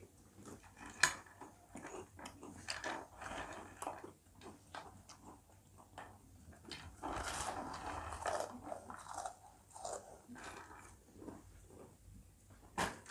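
People chewing and crunching Kurkure, crunchy corn-puff snacks, in irregular crackly bites, with a sharp click about a second in.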